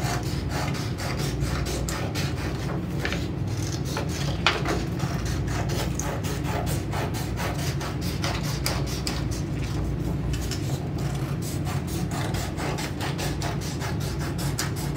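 Scissors cutting through a sheet of card, a steady run of quick snips.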